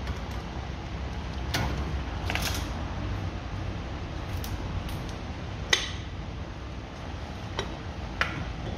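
Scattered sharp metallic clinks and knocks as a car's front brake caliper and tools are handled and the caliper is fitted back over the brake disc, the loudest about six seconds in, over a low steady hum.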